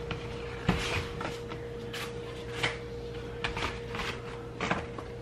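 Handling noises from a newly unfolded Colugo Compact stroller: a scattered series of light clicks and knocks from its frame, with rustles of the cardboard packing sheet on the seat.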